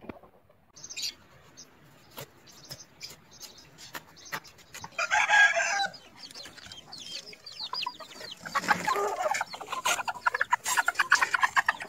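Bantam chickens clucking, with scattered short ticks early on. A single loud pitched call comes about five seconds in, and a rapid run of clucks builds near the end.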